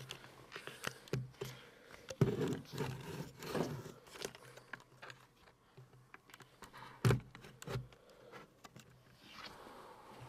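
Handling noise: scattered clicks, scrapes and rustles as a handheld camera and a device are moved about on a tabletop, with two sharper knocks about two and seven seconds in.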